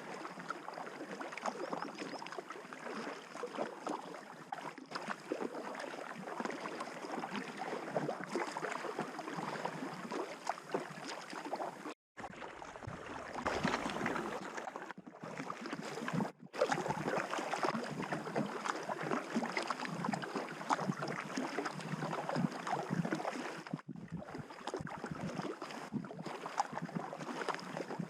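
Water sounds around a packraft on the move down a river: a dense run of small splashes and lapping.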